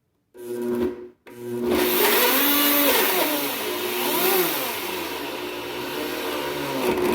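Countertop blender chopping chopped tomatoes, bell pepper and avocado: a short burst, a brief stop, then a restart and steady running with its motor pitch wavering up and down. It is a first rough blend, not yet smooth, to break the vegetables down and make room for more.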